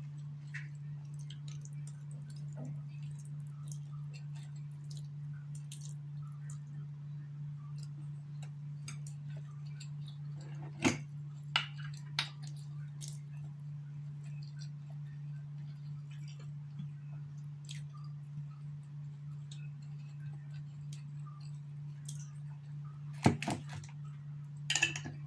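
Mukbang eating sounds: faint chewing and small clicks of chopsticks and noodles, over a steady low hum. About eleven seconds in, three sharp clicks come as a bottle of sweet chili sauce is handled over the plate, and there are a few louder knocks near the end.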